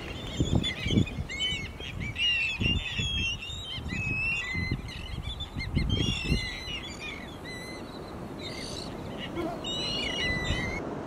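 A flock of seabirds calling, many short rising-and-falling calls overlapping throughout, over low gusts of wind on the microphone.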